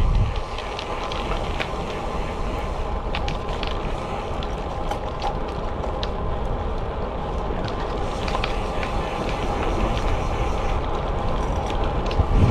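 Road bike rolling along on tarmac: steady tyre rumble and wind rush with the drivetrain running, and a few light clicks now and then.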